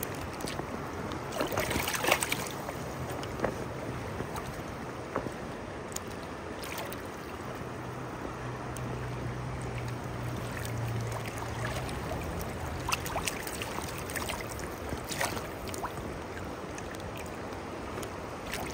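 Steady rush of a shallow, rocky river flowing, with a few brief sharp sounds about two seconds in, around six seconds in and again around fifteen seconds in.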